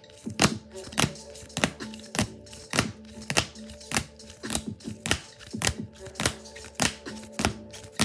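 Sharp clicks at a very even pace, about one every 0.6 seconds, over background music with a steady low tone.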